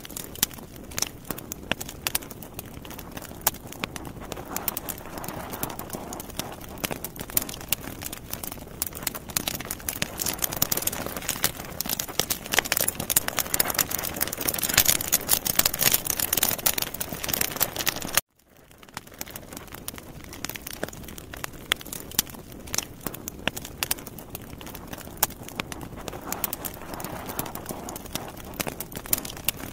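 Sausages grilling on skewers over charcoal: dense crackling and popping with a sizzling hiss that swells through the middle, dropping out for a moment about two-thirds of the way through.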